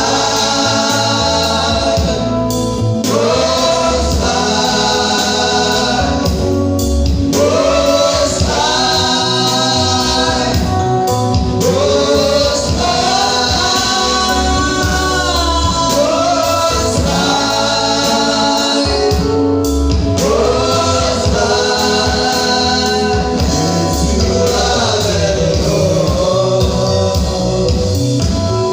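Gospel worship song: a choir singing a melody over instrumental backing with a steady bass line.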